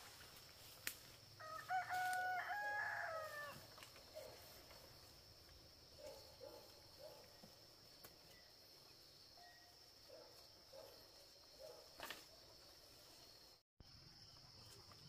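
A rooster crowing once, a stepped call about two seconds long, followed by scattered short, soft chicken clucks.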